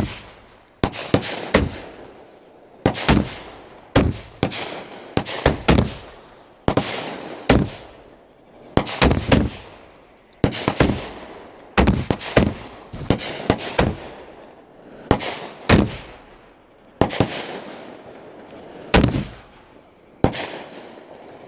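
Aerial fireworks shells bursting overhead in a steady series of sharp bangs, about one a second and sometimes two in quick succession, each trailing off before the next.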